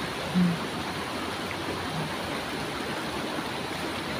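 Steady rush of a shallow river flowing over low concrete ledges and rocks.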